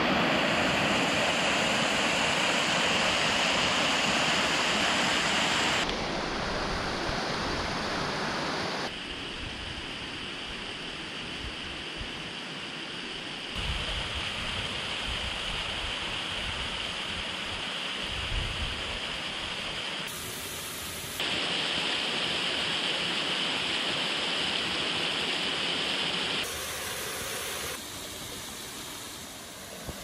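Steady rushing of mountain cascades and stream water over rock, its loudness changing suddenly several times as different falls are heard.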